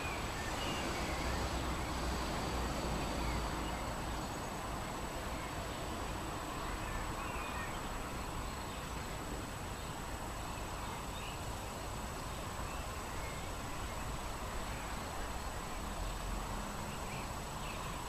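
Open-air ambience: a steady rush of wind in tree leaves, with gusts rumbling on the microphone around a second in and again near the end, and faint scattered bird chirps.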